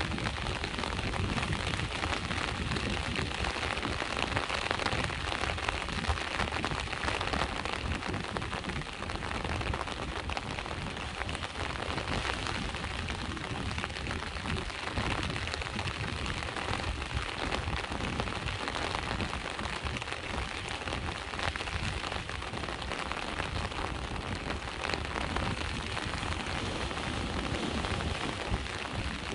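Steady rain falling on hard surfaces, a dense, even patter of drops with a low rumble underneath.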